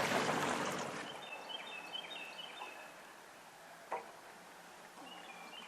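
A songbird singing faintly: two phrases of short, high whistled notes that step up and down in pitch. A rushing noise fades away in the first second, and there is a single sharp click a little before four seconds in.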